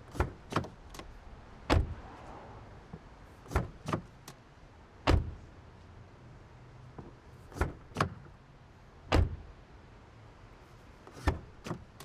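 Car door being opened and shut three times in a row: each time two light clicks of the handle and latch about half a second apart, then a heavy thump a second or so later as the door shuts. A fourth pair of clicks near the end opens it again.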